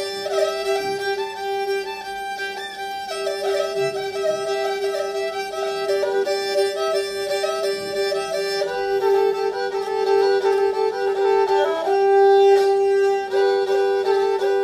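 Background music: a bowed string melody played over a steady held drone note.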